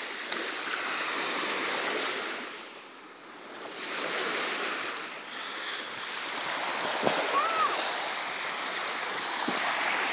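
Sea surf washing on a beach: a steady rushing noise that dies down about three seconds in and swells back.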